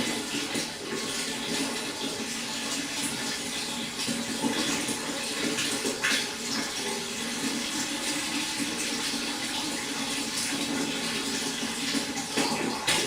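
Steady running, splashing water in a fish pond, with many small irregular splashes over a continuous rush.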